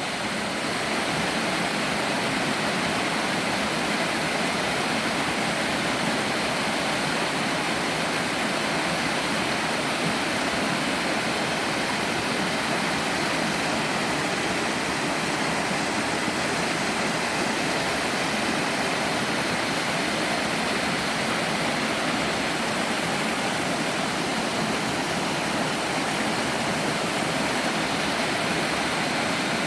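Mountain stream pouring down a three-tiered sliding waterfall over rock: a steady, even rush of water.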